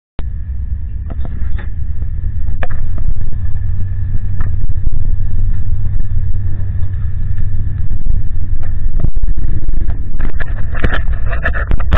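Low, steady rumble of a car engine idling, heard through a handheld camera. Scattered knocks and rubbing from the camera being handled grow more frequent near the end.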